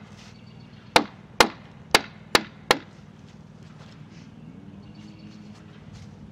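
Large wooden mallet striking a timber-framing chisel five times in quick succession, paring wood from the tongue of a rafter's bridle joint; the strikes stop about three seconds in.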